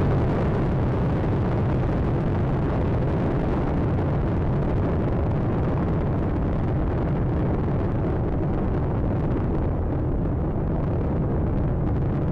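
Space Shuttle solid rocket boosters and main engines in the climb after liftoff: a steady, deep rumbling roar. Its higher hiss thins over the last few seconds.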